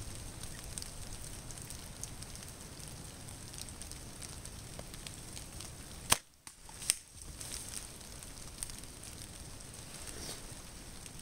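Steady patter of light rain. About six seconds in, the sharp snap of a bow being shot, then a second sharp crack less than a second later.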